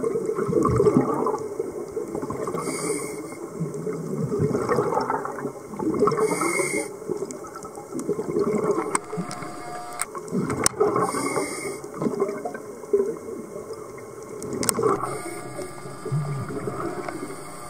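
Scuba diver breathing through a regulator underwater: a short hiss of inhaled air about every four seconds, with bubbling exhalation in between.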